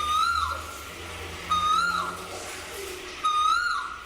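A cuckoo sound effect: one bird call repeated three times, about every second and a half. Each call is a held whistled note that swells up in pitch and then slides down.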